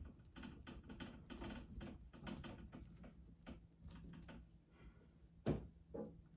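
A tool dabbing and scraping thick texture paste on a stretched canvas: a run of quick, scratchy taps, several a second, then a single louder knock about five and a half seconds in.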